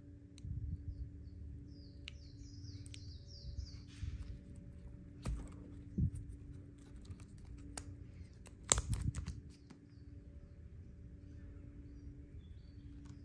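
Close-up handling sounds of a small metal coil being worked with a scalpel and scissors: light scraping and rustling of thin wire, with a few sharp clicks, the loudest a little under two-thirds of the way through. Birds chirp a quick run of short notes in the background early on, over a steady low hum.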